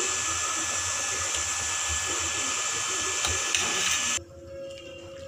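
Steady hiss with a few light clinks of a spoon and knife on a steel plate. The hiss cuts off abruptly about four seconds in, leaving a much quieter stretch with a faint steady tone.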